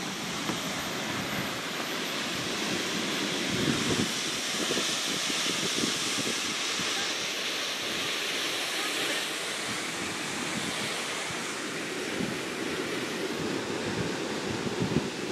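Steady rushing of a waterfall heard from high above, with wind buffeting the microphone now and then.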